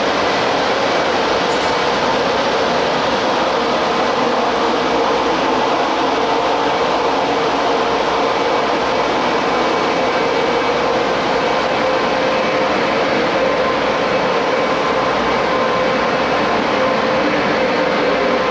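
Steady hum and whir from the electrical and ventilation equipment of Taiwan Railways stainless-steel electric commuter trains at the platform, with a constant mid-pitched tone running through it.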